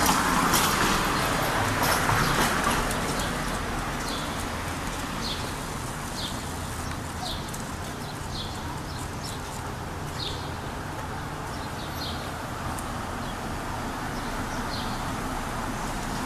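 Footsteps of a person and a dog walking on pavement, light ticks about once a second over a steady street hum, with a louder rush of noise in the first few seconds.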